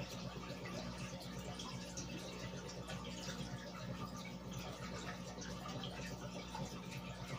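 Aquarium air bubbles rising and breaking at the water surface, a continuous fine bubbling with many small pops and drips, over a steady low hum.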